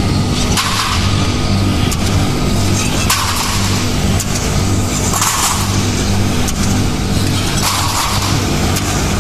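Light keel roll forming machine running: a steady hum from its electric motors and hydraulic pump, with a louder burst of metal clatter and hiss about every two and a half seconds as the line forms and cuts steel profiles.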